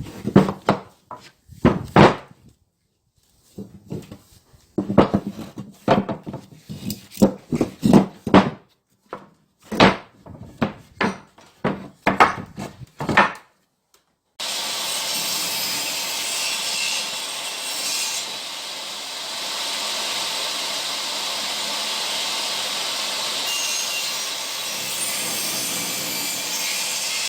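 Wood being sawn by hand: short rasping strokes in quick groups with brief pauses between them. About fourteen seconds in, this gives way abruptly to a steady, unbroken noise with no stroke rhythm.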